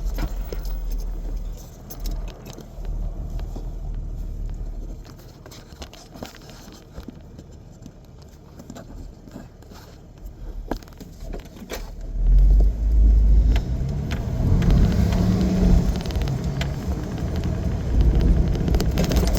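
Vehicle driving on a rough, muddy dirt road: low engine and road rumble with small rattles and clicks, growing markedly louder about twelve seconds in.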